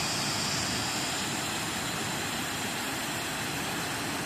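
Waterfall on Fourmile Creek, water pouring and rushing in a steady, unbroken roar.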